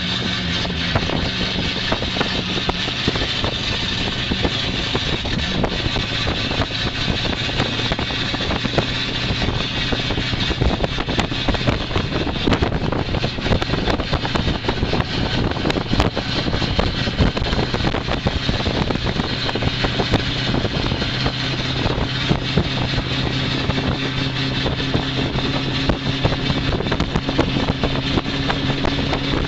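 A 1963 Ford Thunderbird's V8 engine pulling the car around a race track, its note shifting a little with the throttle, under heavy wind and road noise in the open cockpit.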